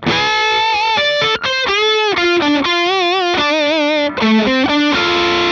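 Electric guitar through an OCD-style overdrive, playing a single-note melodic line of sustained notes with string bends and wide vibrato.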